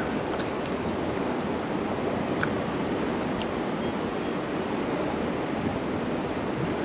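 Steady rush of river current flowing past the bank, an even noise with no breaks.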